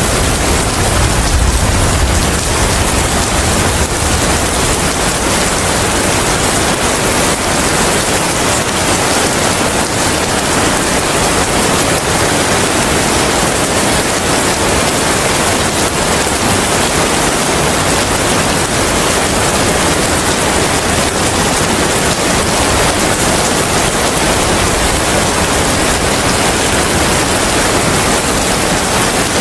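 Steady, heavy rain with wind, an even hiss at a constant level. A deep low rumble dies away over the first couple of seconds.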